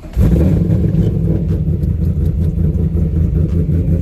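Camaro ZL1's supercharged 6.2-litre V8 starting up with a sudden loud rumble about a quarter of a second in, then running steadily at a low, even note.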